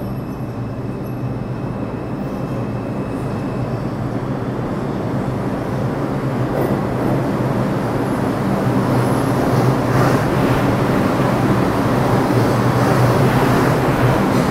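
A (4) subway train pulling into an underground station, its rumble on the rails growing steadily louder as it nears and slides along the platform, over a steady low hum.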